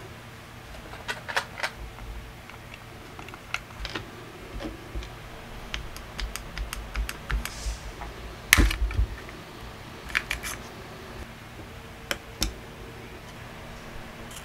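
Scattered small clicks and knocks of a plastic battery adapter housing being handled and set down on a wooden workbench. The loudest knock comes about eight and a half seconds in.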